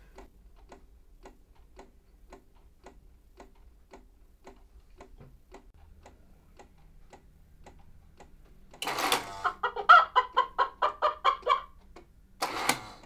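Cuckoo clock ticking steadily, about three ticks a second. About nine seconds in it sounds its call as the figure comes out of its door: a harsh burst, a quick run of about a dozen short pitched notes, then one more short burst.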